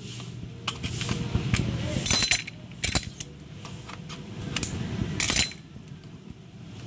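Steel kitchen scissors snipping and clicking on a cooked crab's shell, with an irregular string of sharp clicks and light metallic clinks.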